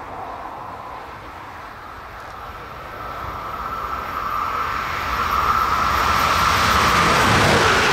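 An electric locomotive-hauled train approaching along the track, growing steadily louder, with a steady whine over a low rumble that strengthens as it nears.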